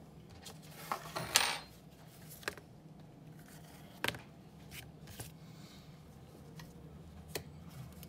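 Light metallic clicks and clinks of small metal objects being handled on a workbench, over a steady low hum. The loudest cluster comes about a second in, with a sharp click about four seconds in and a few fainter ones after.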